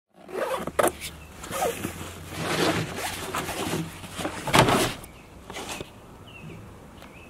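Close handling noise of gear in a pickup bed: fabric rustling, sharp clicks and a zipper being pulled on a gear bag, loudest about four and a half seconds in. Near the end it quiets and a few faint bird chirps are heard.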